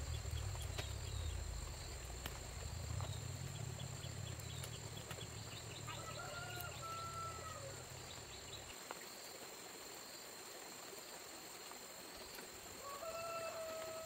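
Outdoor rural ambience: insects buzzing in two steady high tones, under a low rumble that stops about nine seconds in. A drawn-out animal call sounds about six seconds in and again near the end.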